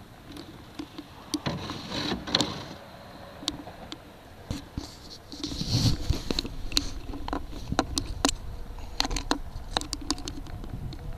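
Scattered sharp knocks and clicks from a canoe on the water, with a brief louder rush of noise about six seconds in.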